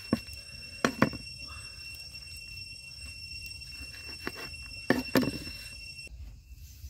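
A cleaver chopping through grilled stuffed pork tripe and striking a wooden cutting board: a few sharp knocks, two about a second in and a cluster near five seconds.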